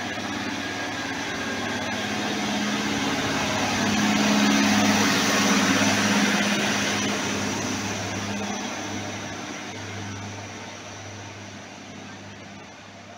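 SKPL SN82 diesel railcar pulling out, its diesel engine running with a steady low hum over the noise of the moving train. It is loudest as it passes, about five seconds in, then fades as it draws away.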